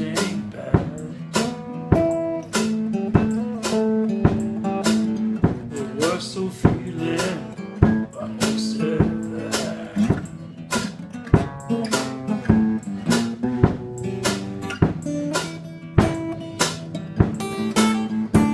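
Acoustic guitar played as a blues, strummed in a steady beat of sharp strokes over ringing low notes.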